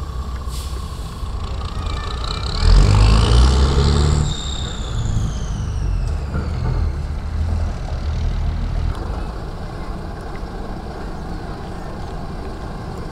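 Heavy diesel truck pulling a drawbar trailer, accelerating away. The engine is loudest about three seconds in, with a whine that climbs and then glides down before the sound eases off.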